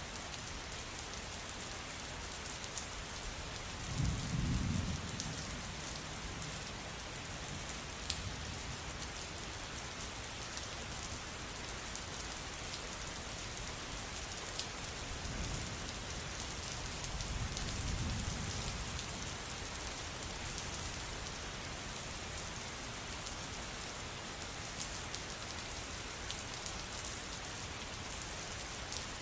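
Steady rain falling, an even hiss with fine drop ticks. Thunder rumbles twice, a sharper roll about four seconds in and a slower, swelling one a little past halfway.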